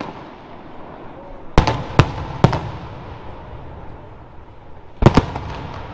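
Aerial firework shells bursting: three sharp bangs about half a second apart, then, after a lull of low rumble, a quick cluster of bangs near the end.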